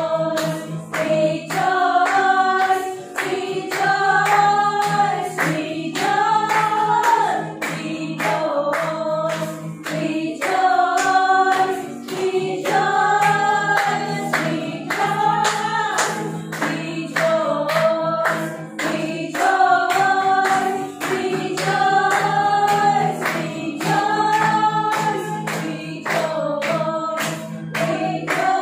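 Praise-and-worship song: a group singing together over accompaniment with a steady beat, the sung phrases repeating every couple of seconds.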